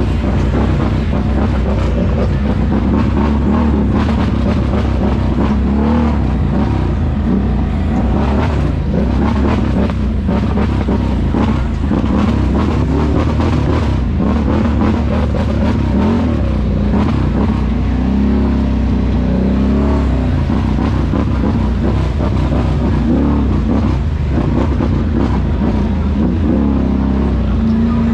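ATV engine running under steady throttle while riding over a rough dirt trail. The engine note wavers up and down slightly in places.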